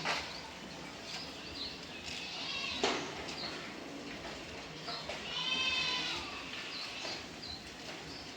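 A cat gives one long, drawn-out meow about five seconds in, with a few faint, short high chirps around it.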